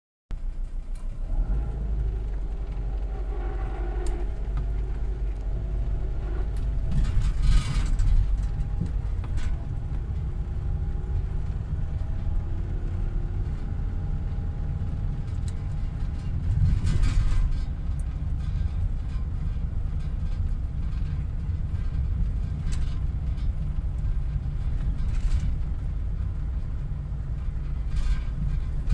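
Vehicle driving, heard from inside the cab: a steady low engine and road rumble with faint creaks, and a couple of louder knocks as it goes over bumps, one about seven seconds in and one about seventeen seconds in.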